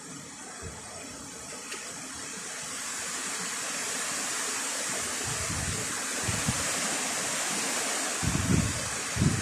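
Heavy rain pouring down, growing louder over the first few seconds, with gusts of wind buffeting the microphone in the second half.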